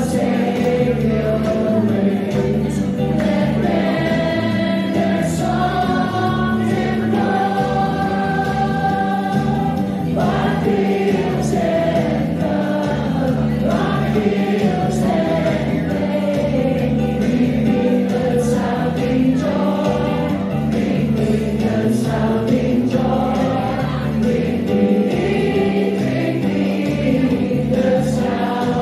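A choir singing a Christmas carol, with long held notes.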